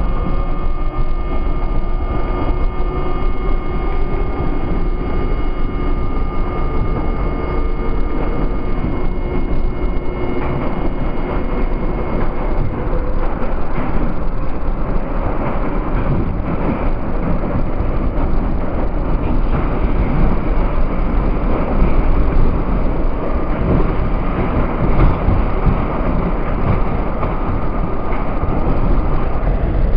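R32 subway car running through a tunnel, heard from inside the lead car: a steady rumble of wheels on rail with constant clatter. A whine of several steady tones sounds over it and fades out about a third of the way through.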